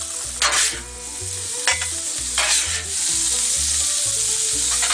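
Vegetables sizzling on a Blackstone flat-top griddle while a metal spatula scrapes across the steel about four times, scooping them up. The sizzle grows louder over the second half.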